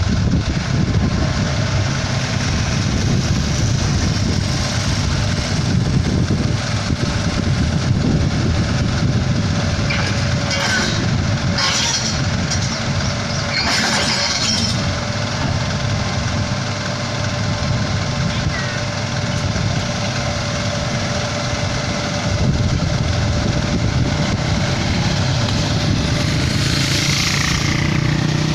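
Kobelco SK75 excavator's diesel engine running steadily under load as the machine crawls on its tracks up a loading ramp, with a steady whine. A few short sharp noises come about ten to fifteen seconds in, and a brief hiss near the end.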